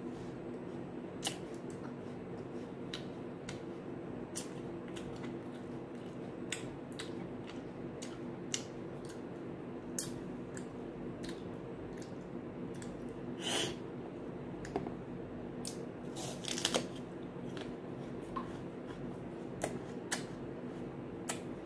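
Close-up chewing and crunching of crisp raw green apple: irregular sharp crunches about once a second, with two longer, louder crunches about two-thirds of the way through, over a steady low hum.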